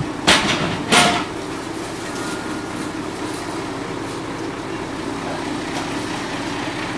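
Heavy truck diesel engine idling steadily, with two short loud noisy bursts about a second apart near the start.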